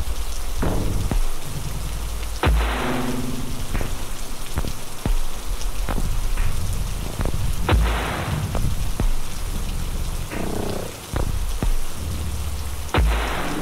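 Background ambient music: sustained deep bass notes and a struck note with a ringing tail about every five seconds, over a steady rain-like hiss.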